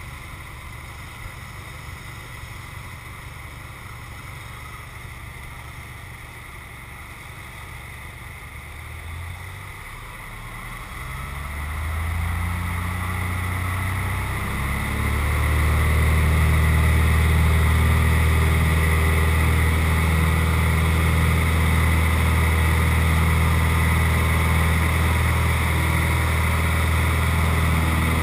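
Single-engine Cessna's six-cylinder piston engine and propeller heard from inside the cockpit, running at low power, then throttled up in two steps about eleven and fifteen seconds in to full takeoff power, which holds steady through the takeoff roll and climb-out.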